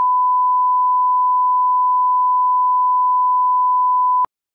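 Steady 1 kHz reference test tone of the kind played with SMPTE colour bars: one unbroken pure beep that cuts off abruptly near the end.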